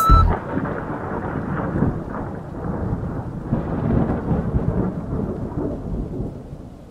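A rumbling, hissing noise that fades away toward the end.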